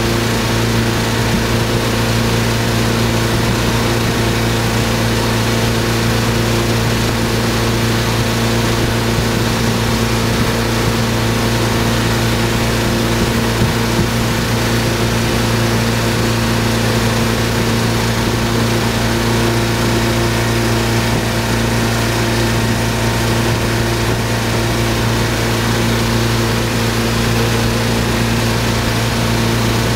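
Tow boat's engine running at a steady, unchanging pitch while pulling a water skier, over a steady rushing hiss from the churning wake.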